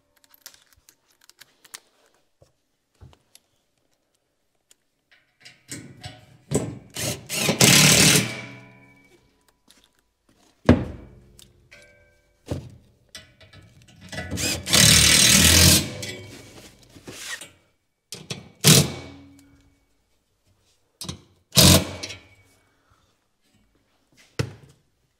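Cordless impact driver hammering quarter-inch lag screws into the wall studs to hang a steel angle shelf, in two bursts of a couple of seconds each. Single sharp knocks and clunks fall between and after the bursts.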